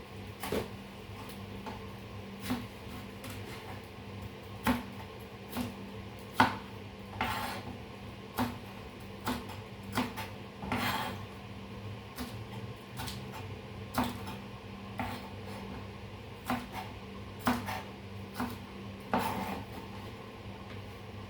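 A cooking utensil clinking and scraping against cookware: irregular taps with a few longer scrapes, over a steady low hum.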